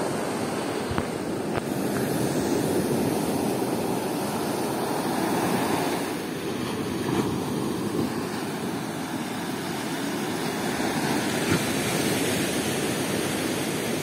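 Sea surf breaking and washing up a sandy beach: a steady rushing wash that swells and eases in slow waves.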